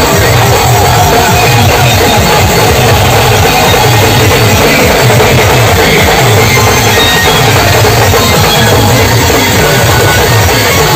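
Street band drumming: many side drums beaten with sticks over a large barrel drum, playing a loud, steady beat, overloaded on the recording.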